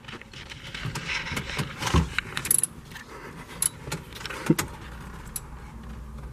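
Light metallic clinking and rattling of a screwdriver and small parts being worked under a car's dashboard, with scattered clicks and a louder knock about two seconds in.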